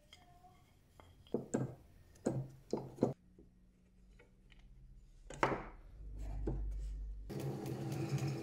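Wooden knife-handle scales knocking on a bench and against each other while being clamped, a few sharp knocks in the first half. Then a drill press motor hums up, and about three-quarters of the way in a louder steady running sound begins as the drill press bores through the clamped wooden scales.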